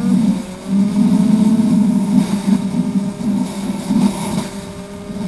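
BMW GS boxer-twin motorcycle engine running while riding on the road. Its pitch drops briefly at the start, then holds steady.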